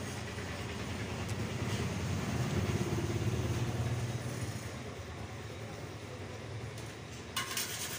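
Low engine rumble of a passing motor vehicle, swelling from about two seconds in and fading by about five seconds, with a short hiss near the end.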